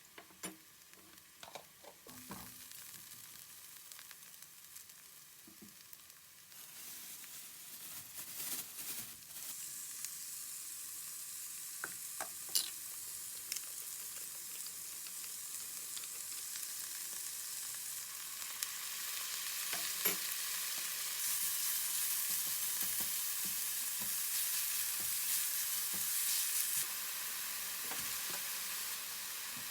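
Food frying in a pan, the sizzle growing louder about a third of the way in and again past the middle, with a few sharp clicks of a utensil against the pan.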